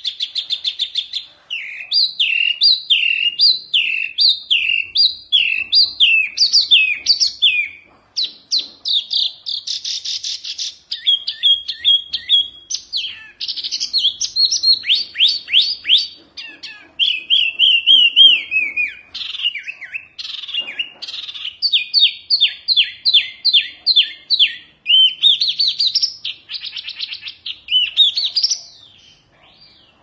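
Caged wambi (hwamei mini) songbird singing loudly and at length. Rapid runs of repeated downslurred whistles, fast trills and chattering phrases follow one another with only brief breaks, stopping about a second before the end.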